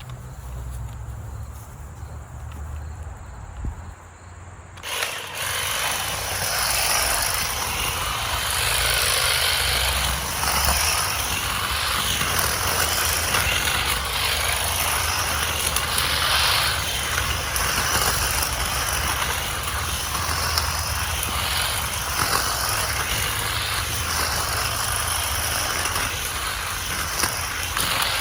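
Ryobi One+ 18V 22-inch cordless hedge trimmer cutting through brush. It starts about five seconds in and then runs steadily, its pitch wavering up and down as the blades meet the branches.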